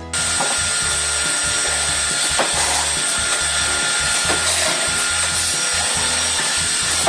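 CNC boring machine running on wood: a steady hiss with a constant high-pitched whine, and a low hum that cuts in and out irregularly, every half second to a second.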